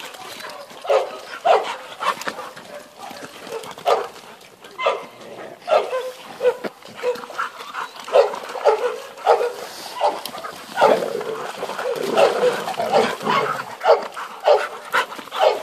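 Dogs barking repeatedly at play, short sharp barks coming about once or twice a second, with a longer, rougher stretch of sound about two-thirds of the way in.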